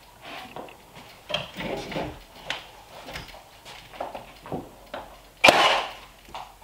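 Cordless nail gun firing once with a sharp, loud shot about five and a half seconds in. Before it come lighter knocks and rubbing as the charred wood corbel is shifted into place against the ceiling.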